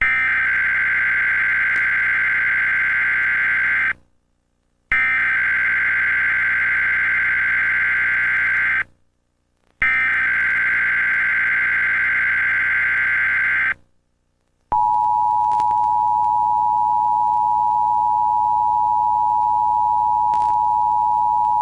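Emergency Alert System test signal: three bursts of SAME digital header data, each about four seconds with a one-second gap, followed about fifteen seconds in by the steady two-tone EAS attention signal (853 and 960 Hz). The sequence opens a coordinated monthly test.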